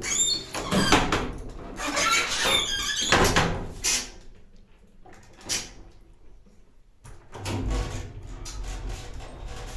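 Lift doors squeaking and clattering as they are worked for several seconds. A short knock follows, and then a low rumble and hum start about seven and a half seconds in.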